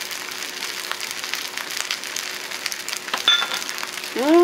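Beef-bowl kimchi fried rice sizzling in a frying pan, a steady crackling hiss. There is a light clink about three seconds in. Near the end comes a single hummed "mmm" that rises and falls as the dish is tasted.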